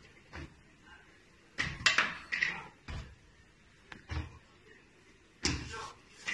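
A child's feet thumping down on a hard floor while jumping, in several irregular thuds and knocks, loudest about two seconds in.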